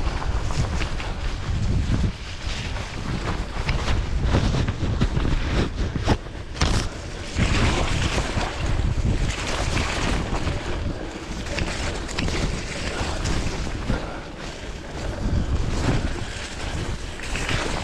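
Wind buffeting the microphone of a bike-mounted camera, over Panaracer GravelKing SK 38 mm gravel tyres rolling and splashing through mud and puddles, with a few sharp knocks from bumps in the track.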